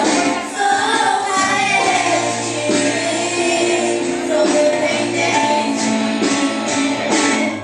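Christian worship song: voices singing over instrumental accompaniment.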